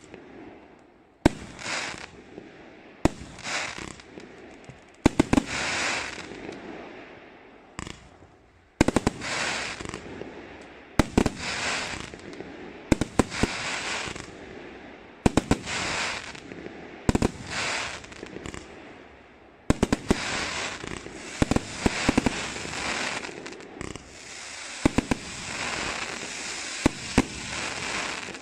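A 118-shot, 30 mm-calibre consumer fireworks compound cake firing shot after shot. Each sharp report is followed by a couple of seconds of crackling from the bursting stars. The reports come about every two seconds at first, then faster and denser, with the crackle running on almost unbroken through the last third.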